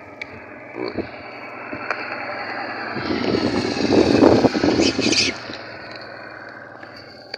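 A road vehicle passing by: its noise swells over about three seconds, is loudest around the middle, then fades away.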